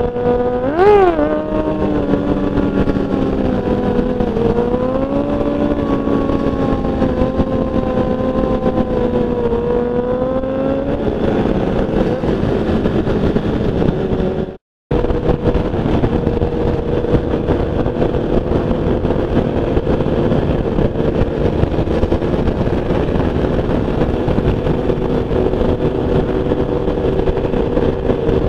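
Sport bike's 600cc inline-four engine at highway cruise under a steady rush of wind and road noise, with a quick rise and fall in revs about a second in. The sound cuts out for a moment about halfway, then carries on as mostly steady rushing noise with a fainter engine tone.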